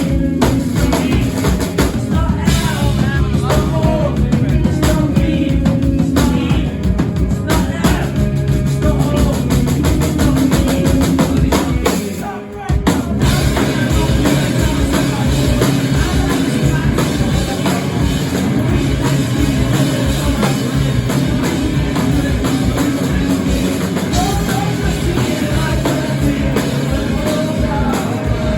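Rock band playing, with a drum kit driving a steady beat and singing over it. There is a short break about twelve seconds in before the band comes back in.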